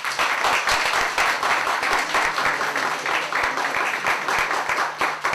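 A roomful of people applauding, with dense, steady clapping.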